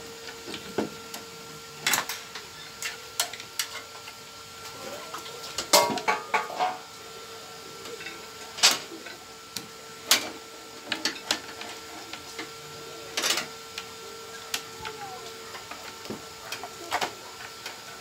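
Irregular sharp clicks and taps of wires, plastic connectors and pliers being handled while wiring a microwave oven's high-voltage transformer, with a quick cluster of clicks about six seconds in. A faint steady hum runs underneath.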